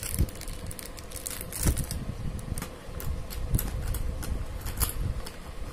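Handling noise from bangles in plastic wrapping and clear plastic storage boxes: scattered clicks and taps about once a second over a low rumble, with a faint steady hum underneath.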